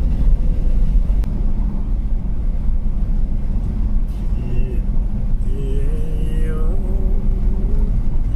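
Steady low rumble of a moving vehicle in strong wind: wind buffeting and road noise heard from inside the cabin.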